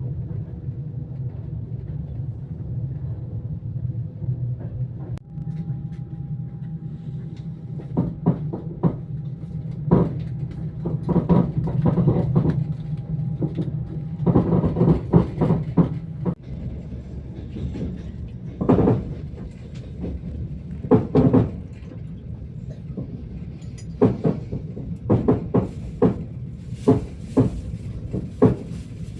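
Passenger train running on the rails: a steady low rumble with irregular clusters of knocks and rattles from the wheels and carriage, and a faint thin whine for several seconds in the middle.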